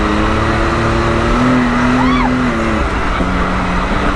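2020 Can-Am Maverick X3 side-by-side's three-cylinder turbo engine running steadily on the trail, with a short throttle lift about three seconds in before it pulls again at a lower pitch. A brief high chirp sounds about two seconds in.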